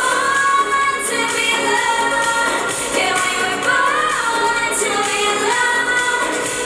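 K-pop song with female singing over a full pop backing track; it cuts off abruptly at the end.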